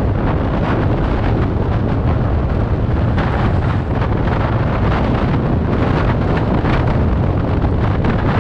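Loud, steady wind buffeting on the camera microphone of a scooter ridden at about 65 to 85 km/h, with road and vehicle noise mixed in underneath.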